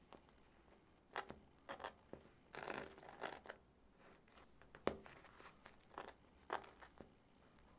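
Faint scraping of a table knife spreading cream cheese over the cut face of a halved bagel: a series of short, crackly strokes against the crisp crust, with one sharper click about five seconds in.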